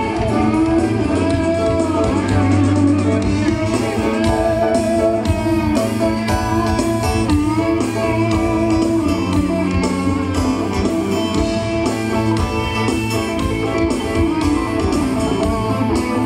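Live band soundchecking through a stadium PA line array: steady music with guitar to the fore and some singing.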